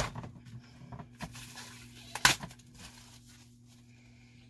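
Plastic parts of a Dyson Ball Animal 2 upright vacuum being handled during assembly: light rattles and rustling, with one sharp plastic clack a little over two seconds in.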